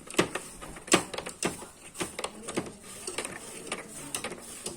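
Small brush scrubbing dust off a split air conditioner's cross-flow blower wheel as it is turned by hand, with irregular sharp clicks and scraping strokes of the bristles against the fan blades.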